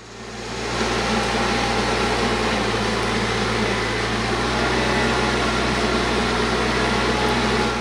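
TYM T474 compact tractor's diesel engine running steadily while its front-loader bucket pushes dry clay. The sound fades in over the first second and fades out near the end.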